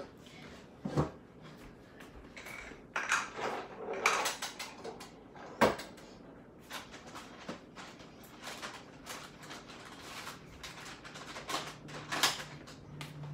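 Scattered knocks, clicks and rustling of someone moving about a room and handling things, with a sharp knock about five and a half seconds in.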